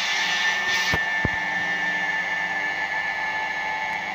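Electric car-polishing machine with a foam pad running steadily against car paintwork: a steady high whine over a rushing hiss, with a couple of brief knocks about a second in.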